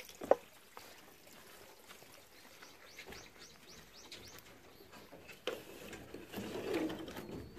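A sharp knock just after the start, then a quick run of bird chirps about three seconds in. Near the end comes a click and some rubbing as a wooden turn-latch on a plank coop door is worked by hand.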